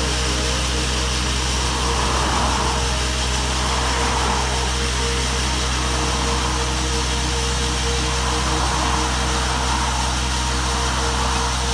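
Diesel-powered trailer core drill running steadily, its hydraulic-driven 300 mm core barrel turning and cutting into the asphalt with water. Road traffic passes now and then.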